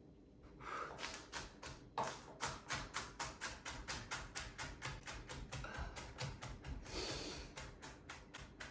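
Kitchen knife rapidly chopping an onion on a cutting board: a quick, even run of short knocks, about three to four a second, starting about two seconds in.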